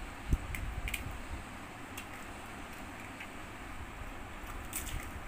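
Panipuri being eaten by hand: scattered light clicks and crackles as crisp hollow puri shells are cracked, dipped and bitten, with one low thump about a third of a second in over a low rumbling background.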